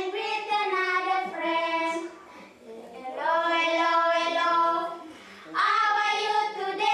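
A group of schoolchildren singing their school song together, in sung phrases with held notes and short pauses between them, about two seconds in and again about five seconds in.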